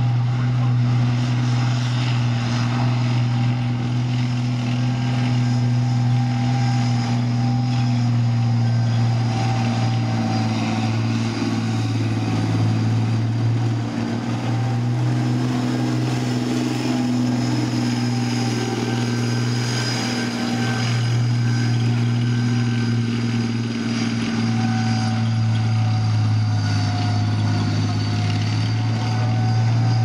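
Challenger armoured repair and recovery vehicle's 26-litre V12 diesel running steadily as the 80-tonne tracked vehicle drives, a deep even hum.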